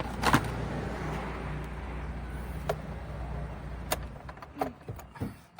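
Mitsubishi Lancer's engine idling with a steady low hum, now starting again after a faulty alarm system's starter kill was removed. The hum stops about four seconds in, followed by a few sharp clicks and knocks.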